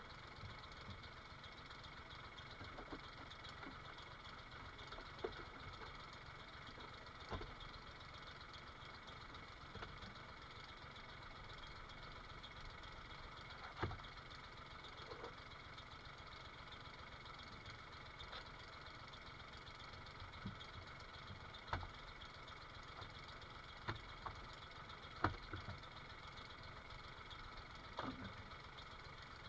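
A faint engine running steadily at idle, with scattered single knocks every few seconds.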